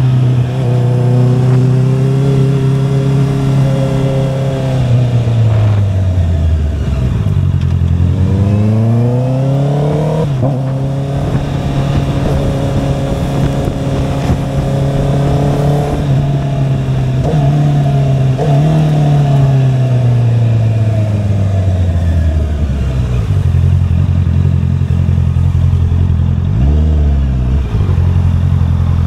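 Honda CBR650R's inline-four engine under way, its pitch holding steady for stretches, then dropping and climbing back several times as engine speed changes, and settling low near the end.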